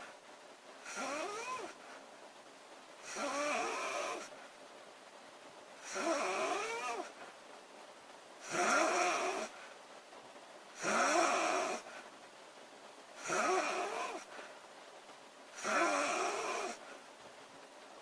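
A girl snoring in a steady rhythm: seven snores, each about a second long, one every two and a half seconds or so, with quieter breathing gaps between them.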